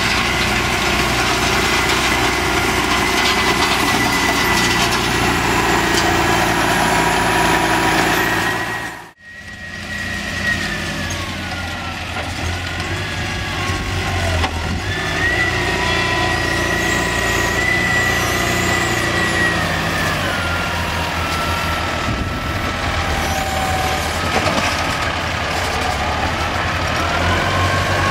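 McCormick tractor's diesel engine running steadily under load while carrying a round bale on its front loader, with a higher whine over it that rises and falls in pitch. The sound cuts out briefly about nine seconds in.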